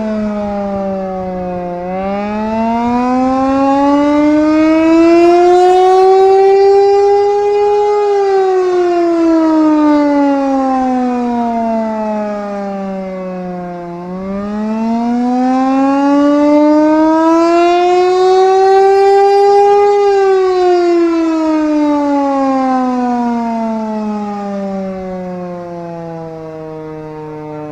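Air raid siren wailing in slow rising and falling cycles, each climb and each fall lasting about six seconds, sounding the alert of an air raid.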